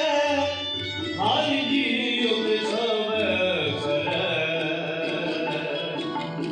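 Sikh kirtan: a male voice singing a devotional hymn over the steady held tones of a harmonium, with tabla. A new sung phrase starts about a second in, after a short break.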